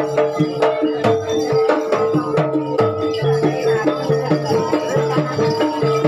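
Kuda lumping (jaranan) music: rhythmic drumming and percussion over a steady held note.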